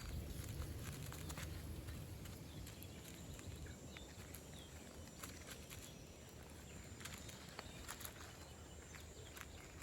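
Faint outdoor forest ambience: a steady low rumble under scattered small clicks and rustles, with a few short, distant bird chirps.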